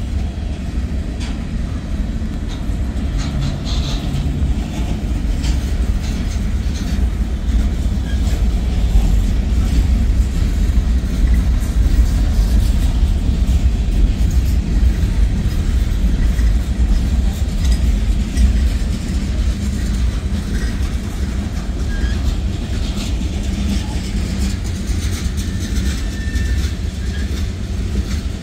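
Freight cars of a passing CSX manifest train rolling by: a loud, steady low rumble with faint, irregular clicks from the wheels on the rails.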